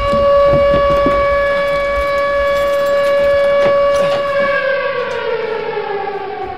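Outdoor tornado warning siren sounding a steady, loud wail, then winding down, its pitch falling from about four and a half seconds in.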